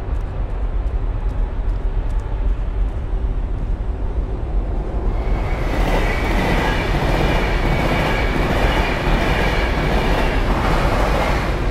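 Deep, steady mechanical rumble. About five seconds in, a louder grinding screech with high ringing tones joins it, like heavy metal machinery or rail wheels.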